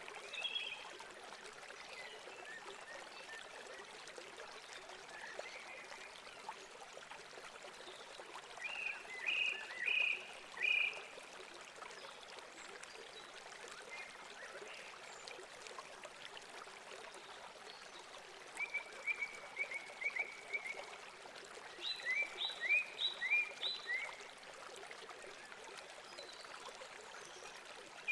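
Steady running water, with three bursts of short, rapid chirping calls from a small animal, each a few seconds long.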